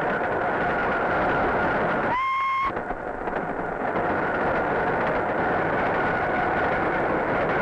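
SNCF 2D2 electric locomotive running at speed, a steady rumble with a faint hum in it. About two seconds in comes one short whistle blast of about half a second.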